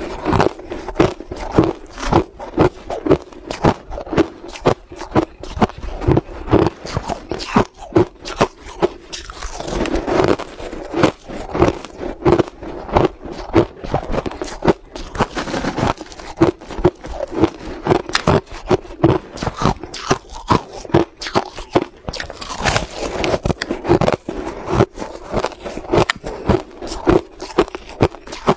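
Crushed ice being chewed close to the microphone: a steady run of crisp, sharp crunches, about two a second.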